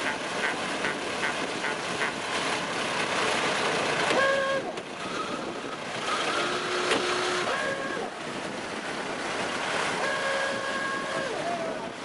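Vintage Ford Model T cars moving off in procession, their engines running under a general outdoor hiss. A few short horn toots sound partway through and again near the end.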